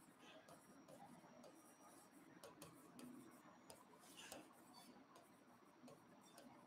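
Faint, irregular ticks and light scratches of a stylus writing on an interactive touchscreen whiteboard, over quiet room tone.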